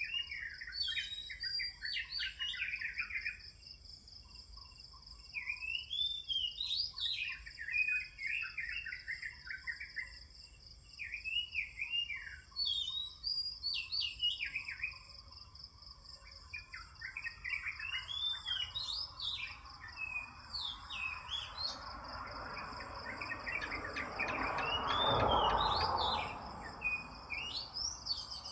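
Oriental magpie-robin (kacer) singing in bursts of varied, rapidly changing whistled phrases with short pauses, over a steady high-pitched insect buzz. A broad whooshing noise swells in the second half, loudest a few seconds before the end, then fades.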